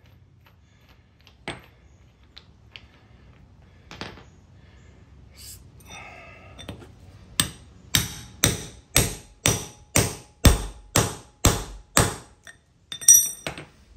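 Hammer driving a steel setting tool into a drop-in concrete anchor, expanding its slug to lock the anchor in the concrete. After a few light taps come about ten sharp, ringing metal blows, two a second. A metallic clink follows near the end.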